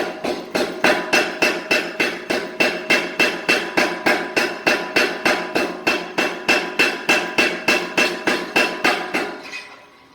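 Steady, rapid hammer blows on hot steel on an anvil, about four a second, each with a metallic ring, while a taper is drawn out. The blows stop shortly before the end and the ring dies away.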